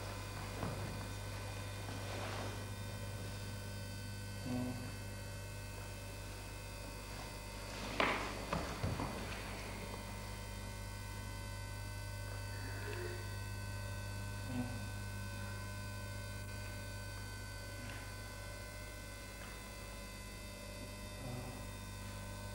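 Steady electrical mains hum with a few faint, brief incidental sounds. The loudest of these is a short burst about eight seconds in.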